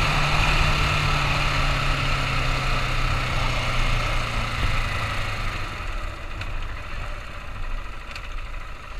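KTM 690 Enduro R's single-cylinder engine running at road speed under wind rush, then easing off after about five seconds: the engine note drops and quietens as the bike slows toward traffic.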